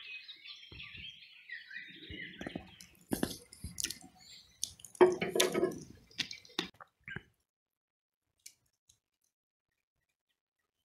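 Birds chirping, then a string of irregular sharp knocks and clatters. The sound cuts off abruptly about seven seconds in.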